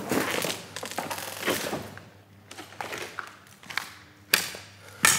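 Footsteps crunching and scuffing over rubble and loose debris on a littered floor, uneven and irregular, with two sharper knocks in the last second or so.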